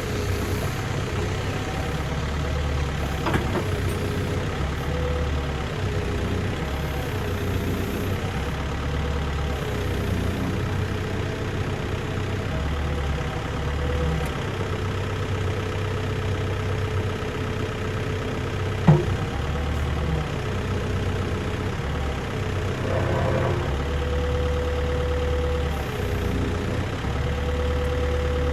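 Volvo BL71 backhoe loader's diesel engine running, its low note swelling and easing every few seconds, with a thin steady whine over it. One sharp knock about 19 seconds in.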